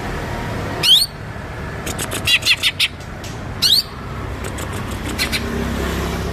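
Cucak ijo (green leafbird) singing: a sharp rising whistled sweep about a second in and another near the middle, with quick runs of short high chirps between and after them, over a steady low background hum.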